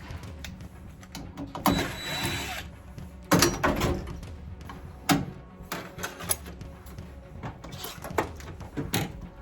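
Background music with several sharp knocks and clatter from hands-on work, and a brief hiss about two seconds in.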